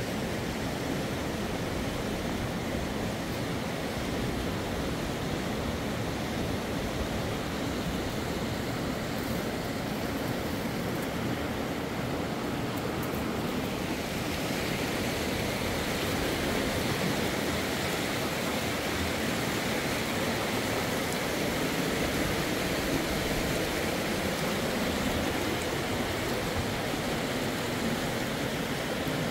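Steady rushing of flowing river water, an even hiss with no let-up, turning a little brighter and hissier about halfway through.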